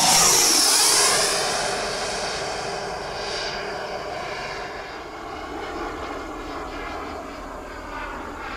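Electric ducted-fan whine of a Schuebeler DIA HST fan in an RC BAE Hawk model jet making a fast pass: loudest at the start, with the pitch dropping as it goes by, then a steadier whine that slowly fades as it flies away.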